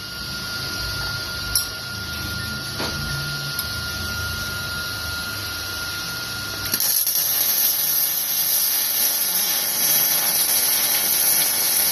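Metalworking power-tool noise from fabricating a steel fuel tank: a steady hiss with a thin, high, steady whine for the first two-thirds. It then changes abruptly to a louder, harsher hiss.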